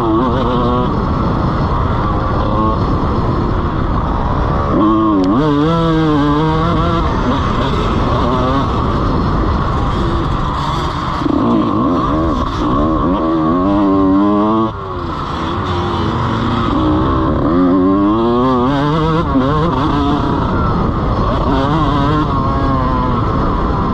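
Honda CR125 two-stroke motocross engine ridden hard, its revs repeatedly climbing as it accelerates through the gears and falling away as the throttle is shut, with a brief drop in level about 15 seconds in.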